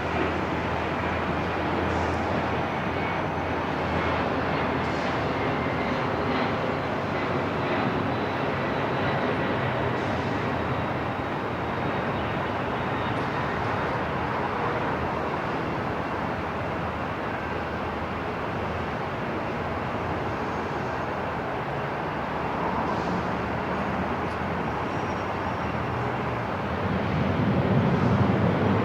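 Airport ambience: a steady wash of noise with a jet aircraft's engine rumble beneath it. The low rumble swells near the end.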